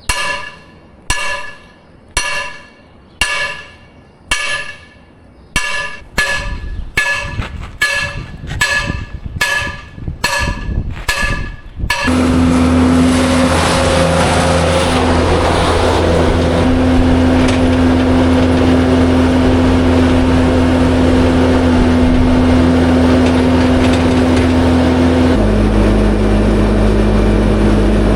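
Sledgehammer blows on a steel shaft being driven through a corn head, each strike ringing like metal, about one a second at first and then about two a second. About twelve seconds in it cuts abruptly to a vehicle engine running steadily, whose drone shifts pitch near the end.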